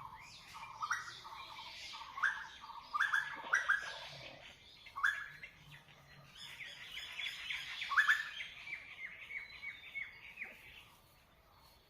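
Small birds chirping: short, sharp rising chirps, with a quicker run of repeated notes in the middle, dying away near the end.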